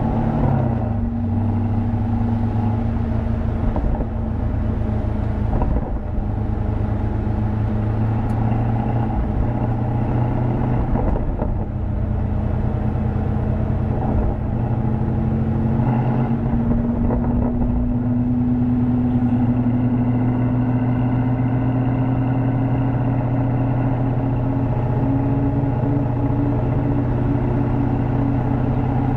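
2022 Camaro SS 1LE's 6.2-litre LT1 V8 running at low revs as the car rolls slowly in first and then second gear, heard from inside the cabin with a steady low rumble. The pitch rises slowly in the second half as the car gathers a little speed.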